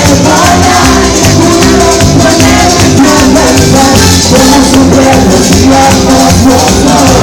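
Loud Latin dance music from a band, with a shaker keeping a steady beat over the bass and a melody line.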